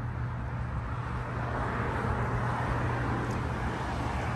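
Street traffic noise with a steady low rumble, a passing car swelling louder about halfway through.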